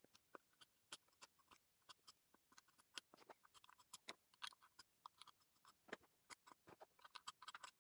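Near silence with faint, irregular small clicks and scratches: a small cleaning tool rubbing over the soldered pogo-pin board in a charging coaster, and the coaster being handled.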